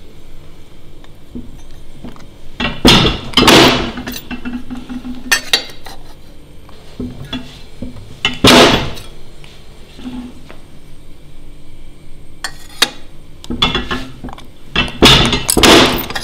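Hand fly press punching slots into the end of a stainless steel exhaust tube: three loud metal strikes, about three seconds in, about eight seconds in and near the end, with lighter clinks of the tube being turned and reset in the die between them.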